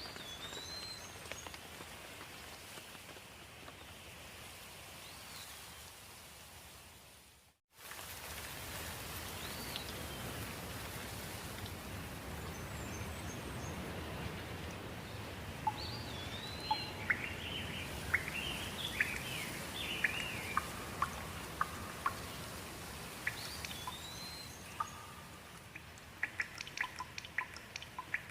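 Steady rain with birds calling through it: a short up-and-down whistled call repeats every few seconds, with a flurry of chirps in the middle. Near the end come quick, sharp drips. The sound drops out for an instant about a quarter of the way in.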